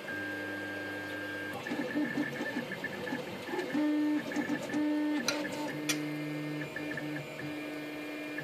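XYZprinting Da Vinci 3D printer printing: its stepper motors whine in steady tones that switch pitch every so often as the print head and bed move, with two sharp clicks a little past halfway.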